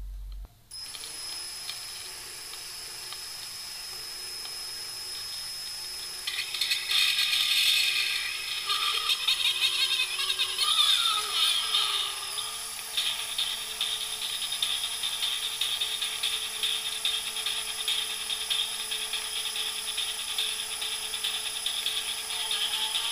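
A cordless drill's motor whirs steadily as it spins a record, starting about a second in. From about six seconds a sewing needle in a paper cone rides the groove, adding a louder, scratchy crackle of thin, distorted playback.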